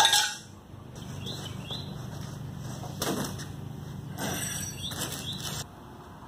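A sharp knock at the start, then a cardboard sheet rustling and flapping as it is spread out and laid on a concrete floor. A few faint high chirps come through over it, and the noise stops abruptly near the end.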